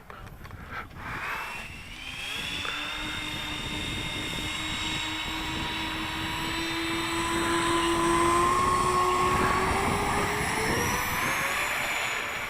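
RC model airliner's 64mm electric ducted fan units whining in flight during take-off and climb-out. The whine rises in pitch about two seconds in, holds steady, then rises again near the end, with the rush of air through the fans loudest in the middle.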